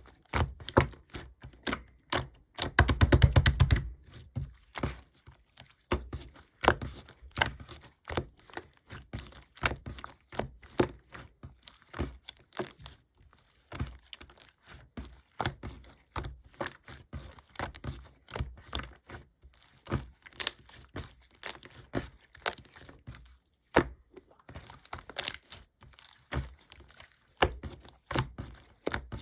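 Irregular small clicks, taps and crinkling throughout, with a fast rattle of clicks about three seconds in.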